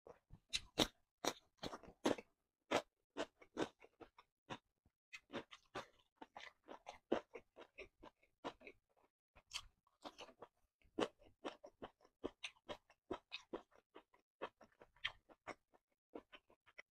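Close-miked chewing of crisp raw cucumber: an irregular run of sharp, wet crunches, several a second.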